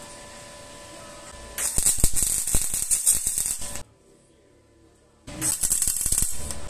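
MIG welding arc on stainless steel with solid 308 wire, crackling steadily in two bursts: one of about two seconds starting a second and a half in, then after a short silence a second, shorter burst near the end.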